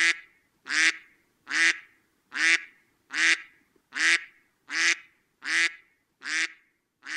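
A water bird calling overhead: a steady series of loud calls, about one every 0.8 seconds, nine or ten in all.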